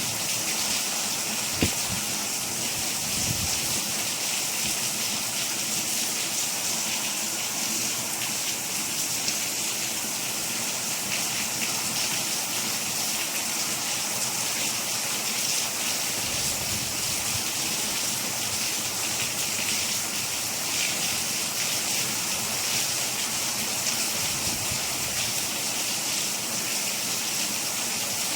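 Steady rain falling, an even unbroken hiss, with a single soft tap about a second and a half in.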